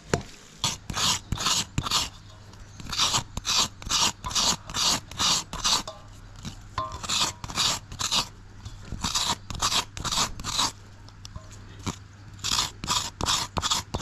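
Fresh coconut flesh being shredded out of a half coconut shell: runs of short rough scraping strokes, about three a second, in groups of four to seven with short pauses between.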